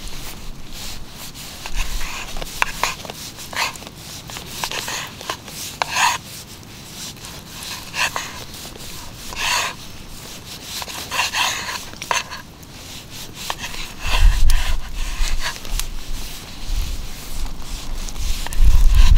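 A kitchen knife slicing raw meat on a wooden cutting board: short cutting and scraping strokes, a stroke every second or so. In the last few seconds a deep rumble comes and goes.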